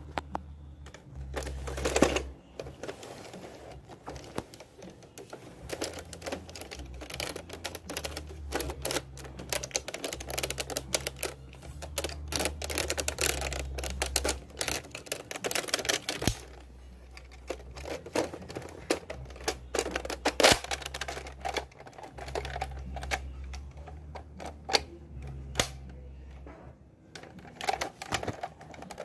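Plastic clicks and clacks of a Nerf toy blaster's mechanism being handled and dry-fired with no darts loaded, irregular and close together, with a few louder snaps. A low hum comes and goes underneath.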